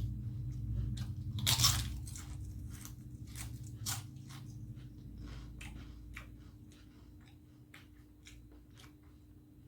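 Close-up eating sounds: a person biting and chewing a mouthful of crunchy food, with a run of sharp crunches, the loudest about one and a half seconds in, softening into quieter chewing toward the end.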